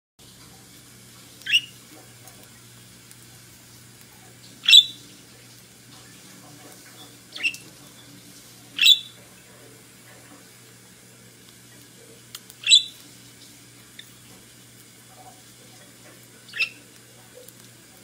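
Budgerigars giving six short, sharp chirps spaced a few seconds apart, over a faint steady hum.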